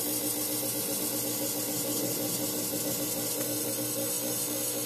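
Fog machine running steadily as the smoke source for an EVAP vacuum-leak test, pushing smoke into the hose lines: a constant electric hum with a hiss over it, unchanging throughout.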